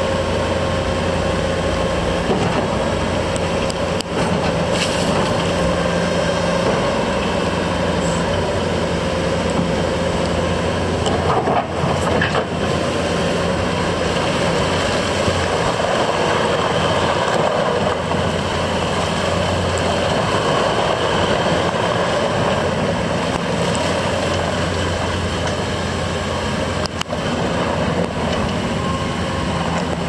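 Bobcat S650 skid steer loader's diesel engine running steadily under load as the machine raises its loader arms and drives around.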